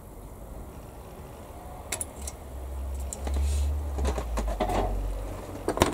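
A few sharp clicks of plastic model-kit parts being snipped from the sprue with side cutters and handled on the workbench, the loudest near the end, over a low rumble that swells in the middle.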